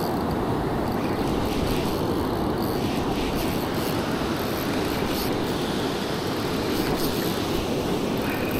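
Steady wash of breaking surf, with wind buffeting the microphone.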